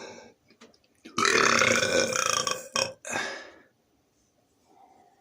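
A man burping: one long, loud burp starting about a second in and lasting about a second and a half, followed by a shorter burp.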